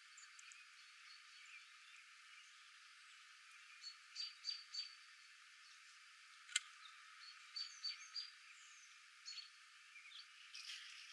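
Faint short, high chirps from small birds, coming a few at a time in little clusters over a steady hiss, with a single sharp click about six and a half seconds in.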